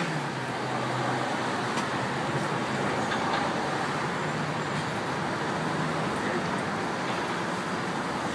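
Steady street traffic noise, with a faint hum of passing vehicle engines.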